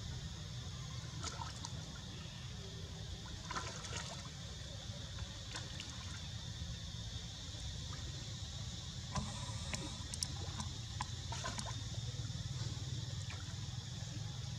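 Water sloshing and lapping as macaques wade and swim in a shallow pool, with small splashes now and then, more of them from about nine seconds in. A steady high hiss runs underneath.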